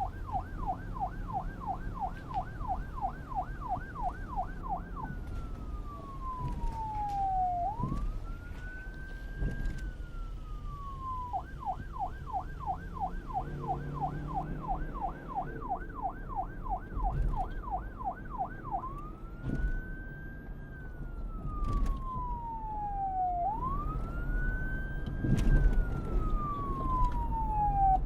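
Electronic police siren on a kids' police motorcycle, switching between a fast yelp of about four warbles a second and slow rising and falling wails. It yelps twice and wails in between and at the end, over a low background rumble.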